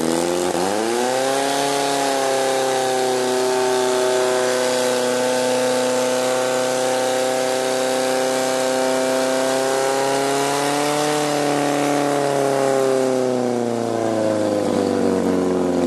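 Portable fire pump engine running hard as it pumps water through the attack hoses to the nozzles: it revs up over the first second or so, holds a high, steady pitch, then slows down over the last few seconds.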